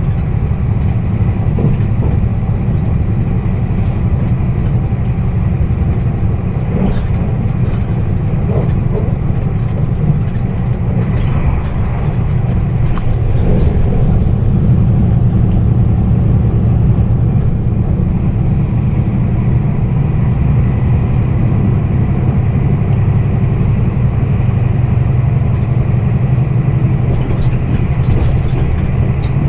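Meitetsu 1200 series electric train running at speed, heard from inside the passenger car: a steady low rumble of wheels on rail with scattered clicks. The higher hiss drops away about halfway through and comes back near the end.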